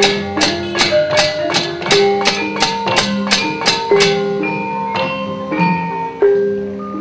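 Javanese gamelan accompanying a wayang kulit shadow-puppet play: metallophone notes ringing over rapid sharp clacks, about three a second, from the puppeteer's kecrek metal plates and mallet on the puppet chest. The clacks thin out after about four seconds while the gamelan plays on.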